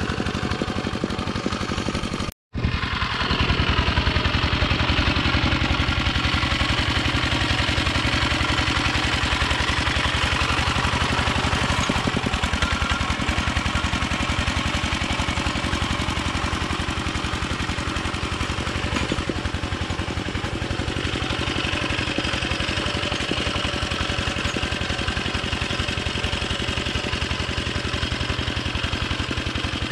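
Yanmar two-wheel hand tractor's single-cylinder diesel engine running steadily under load as it pulls a harrow through a flooded rice paddy. The sound drops out briefly about two seconds in, then the engine carries on.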